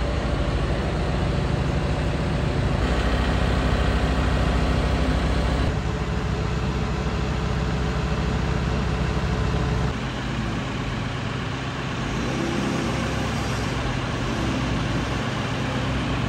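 Diesel engine of a tracked crawler rig idling steadily, a low hum that drops somewhat about ten seconds in.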